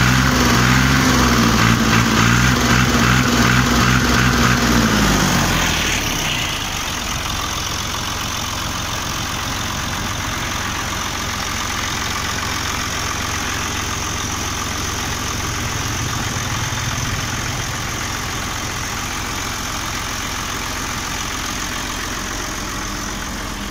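Fiat 480 tractor's three-cylinder diesel engine running steadily, loud and close; about five or six seconds in, its pitch falls and it settles to a quieter, steady low idle for the rest.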